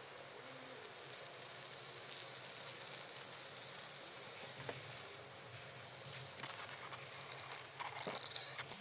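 Homemade hot-wire foam cutter slicing through a foam block: a faint, steady sizzling hiss over a low hum, with crackling in the last couple of seconds as the foam is pushed through the wire.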